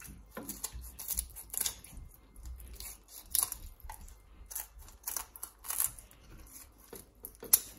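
Kitchen scissors cutting through a raw whole chicken along the backbone to spatchcock it: a dozen or so short, crisp snips at uneven intervals, the loudest near the end.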